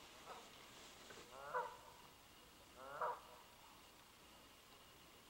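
Canada geese honking: a faint short call, then two louder honks about a second and a half apart.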